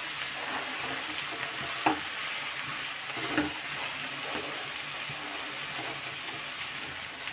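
Chopped okra sizzling in oil in a nonstick wok while a slotted spatula stirs it, with a few light knocks of the spatula against the pan about two and three and a half seconds in.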